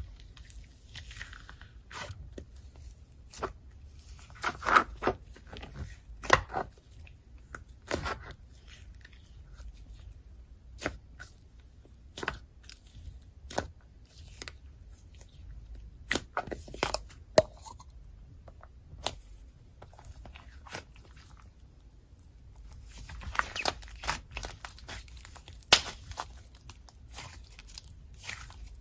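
Slime with clay being worked by hand, giving irregular sticky pops, clicks and crackles, denser for a moment about twenty-three seconds in.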